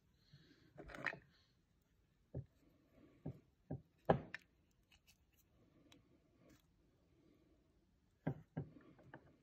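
Small wooden box handled with gloved hands: a brief rustle about a second in, then scattered sharp wooden clicks and knocks as the box is picked up and its hinged lid opened, the loudest a little past four seconds in and two more near the end.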